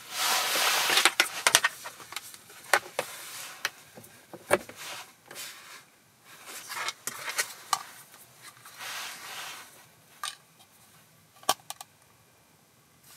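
Handling sounds of a USB cable and its plastic plugs: rustling, then scattered small plastic clicks and taps as the plugs are pushed into a USB socket and into the wireless CarPlay adapter, thinning out near the end.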